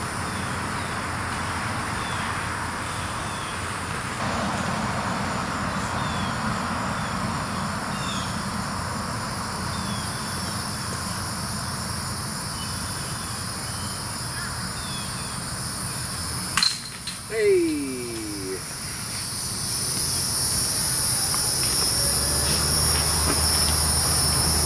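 Outdoor ambience with insects buzzing steadily in high tones that grow louder in the last few seconds. A single sharp knock sounds about two-thirds of the way through.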